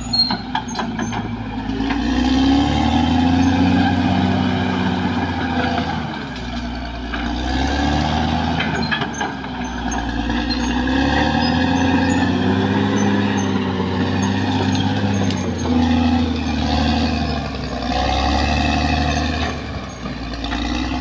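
Caterpillar D6R XL bulldozer's diesel engine working under load, its note swelling and easing every few seconds as the machine pushes. A few sharp clanks come in the first second.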